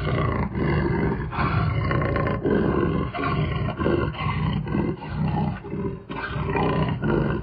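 Big cat roaring and snarling in an unbroken run of short, rough calls, used as a sound effect over an intro logo.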